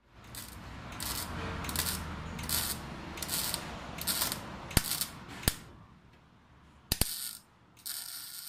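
Electric arc welding on a steel twin-outlet exhaust tip: short bursts of arc noise, each under a second, come about every three-quarters of a second, with a few sharp clicks and a quieter pause of about a second before the last bursts.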